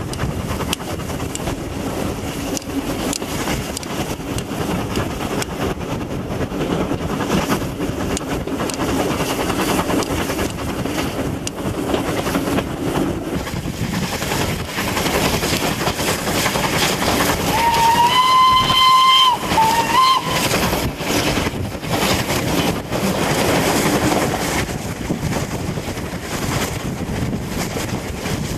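Steam locomotive whistle blowing, one long note and then a short second one, two-thirds of the way through. Under it, the steady rushing noise of the moving train with wind on the microphone at the carriage window.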